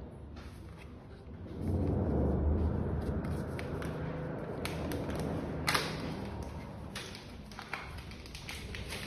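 Small cardboard box being opened and a plastic device slid out of it: scattered light taps and scrapes of card, with a sharper click about five and a half seconds in, over a low steady background hum.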